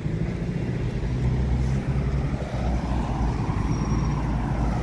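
Road traffic: a car drives past close by, swelling from about two seconds in, over a steady low rumble.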